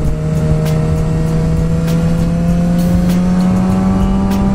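Suzuki GSX-R sport bike's engine running under way while riding, its pitch rising slowly and steadily as the bike gradually gains speed, with wind rush over the microphone.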